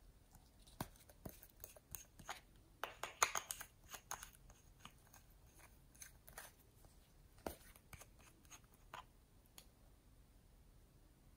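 Faint clicks and scratchy ticks of a small plastic cosmetic bottle being handled and its cap twisted and pulled off, the loudest cluster about three seconds in, thinning out near the end.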